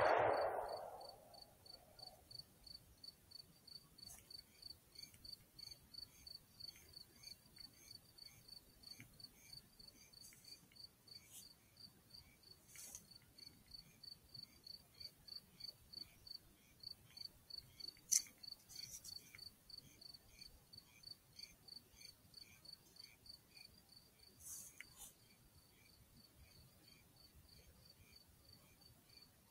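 A cricket chirping faintly and steadily, about four high chirps a second. In the first second the echo of a rifle shot dies away, and a single sharp click comes about 18 seconds in.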